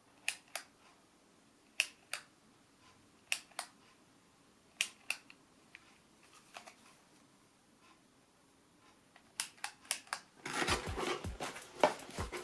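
Camera shutter firing repeatedly: sharp double clicks about every second and a half, then a few quicker clicks. Background music with a steady beat starts near the end.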